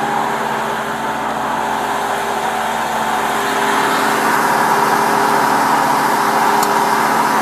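Parked delivery truck idling: a steady engine hum that grows a little louder about four seconds in.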